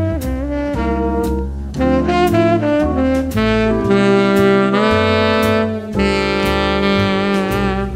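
Background music: jazz with a saxophone lead over bass and drums, the sax holding long notes in the second half.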